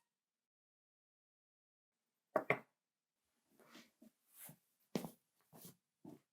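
Handling of fabric and sewing tools on a work surface: after about two seconds of silence, two sharp knocks close together, then a run of soft rustles and scrapes with a few light taps.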